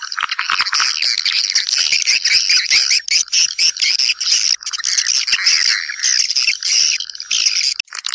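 A flock of swiftlets twittering and chattering in a dense, continuous stream. This is the kind of swiftlet call used to call birds back to nest.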